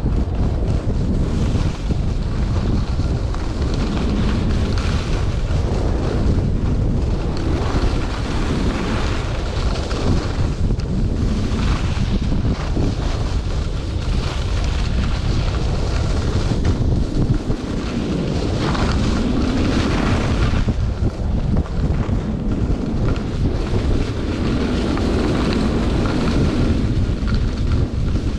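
Wind rushing over the microphone during a fast downhill run, with the hiss and scrape of edges sliding and carving on packed groomed snow that swell and fade with each turn.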